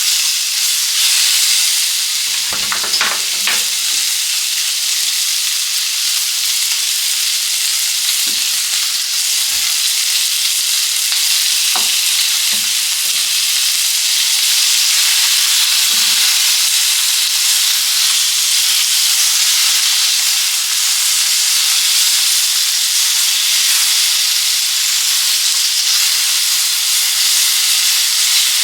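Eggplant, shishito peppers and meat frying in olive oil in a pan: a steady, loud sizzle. A few knocks from stirring in the pan come through it, a quick cluster about three seconds in and scattered single ones later.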